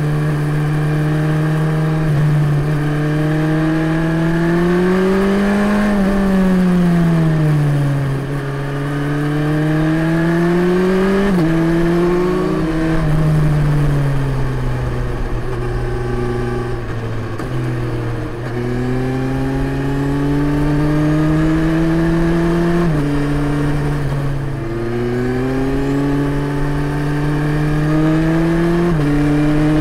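Suzuki GSX-S1000 GT's inline-four engine through a Yoshimura R77S slip-on exhaust, pulling and easing off on a winding climb. Its pitch rises and falls, with a few sudden steps up or down as gears change, about a third of the way in, again past two-thirds, and once more near the end.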